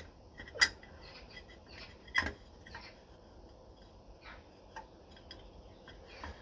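Light metal clicks and taps as a VW Beetle's oil strainer, gaskets and sump cover plate are handled and fitted over the studs by hand. Two louder clicks, one just over half a second in and one a little past two seconds, stand out among fainter ticks.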